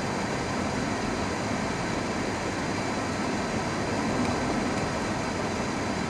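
Steady running noise of a moving car: engine and tyre rumble on the tarmac, even and unchanging throughout.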